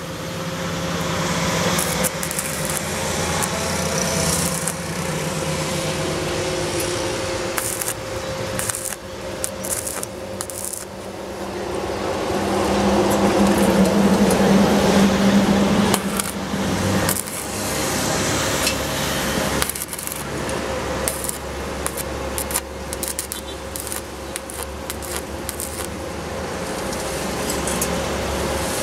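Stick-welding arc crackling and hissing as an electrode is run on steel tubing, breaking off briefly a few times and restarting. A louder low hum swells in the middle, from about twelve seconds to sixteen.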